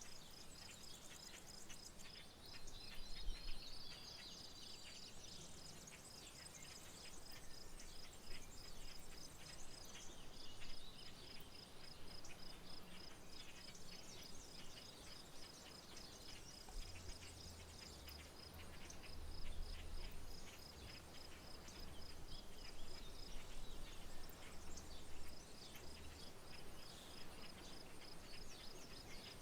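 Outdoor country ambience: an insect trills in a steady, evenly pulsed high note, with a short break near the end. Scattered bird chirps and calls sound over it.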